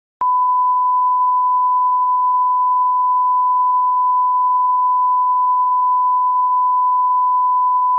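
Broadcast line-up test tone: one steady pure tone at 1 kHz, the reference tone that runs with colour bars. It starts with a click about a quarter of a second in and holds at a constant pitch and level.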